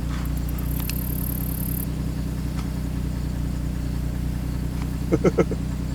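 A 2002 Chevrolet TrailBlazer's 4.2-litre inline-six idling steadily, its cylinder-3 misfire repaired. Three short pitched blips sound about five seconds in.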